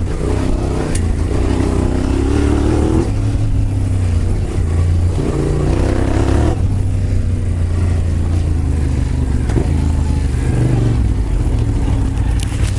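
Yamaha Ténéré 700's parallel-twin engine through a Yoshimura full exhaust, heard under way. It pulls up through the revs twice, with the pitch rising each time, over a steady low rumble picked up by a microphone hanging outside the rider's helmet. A few sharp clicks come near the end.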